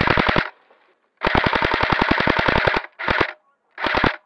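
Airsoft rifle firing rapid full-auto bursts, heard from a camera mounted on the gun. A burst stops about half a second in, a longer burst of about a second and a half follows, then two short bursts near the end.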